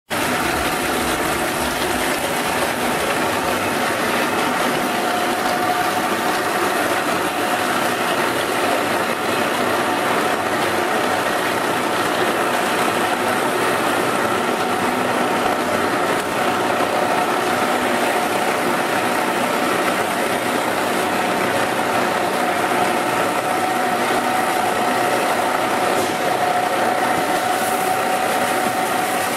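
Meat bowl cutter running, its high-speed knives chopping meat into paste in the rotating steel bowl: a steady mechanical whir with a constant hum.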